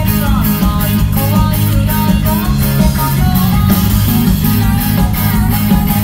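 Loud live band music: a fast pop-rock song with a steady drum beat of about four strokes a second under a melody, heard from the concert crowd.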